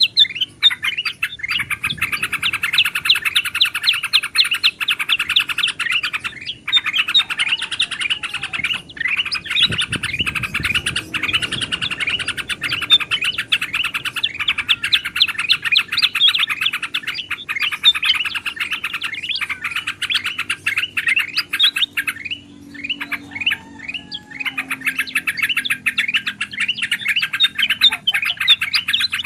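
A mix of bulbul calls — yellow-vented bulbul (trucukan), ruby-throated bulbul (kutilang emas) and black-headed bulbul (kutilang sutra) — chattering in a dense, fast stream of chirps with only a few short breaks, played as a bird-lure recording.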